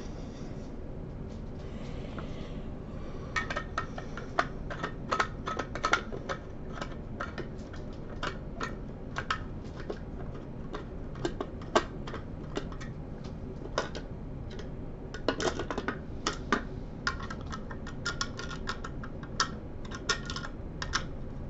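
Typing on a laptop keyboard: irregular runs of key clicks starting a few seconds in, broken by short pauses.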